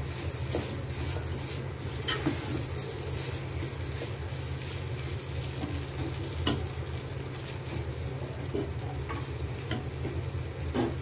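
Wooden spatula stirring and scraping thick, nearly dry beef varattiyathu in a nonstick pot, with the meat sizzling in oil and the spatula knocking against the pot now and then. A steady low hum runs underneath.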